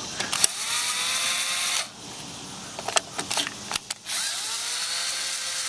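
DeWalt cordless screwdriver turning a nut in two spells, each a whine that rises as the motor spins up and then holds steady, with a few sharp clicks between them about three seconds in. Its battery is nearly flat.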